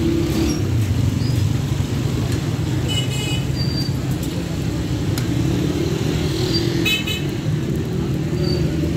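Busy street traffic with a steady low rumble, and a vehicle horn tooting briefly twice, about three seconds in and again about seven seconds in.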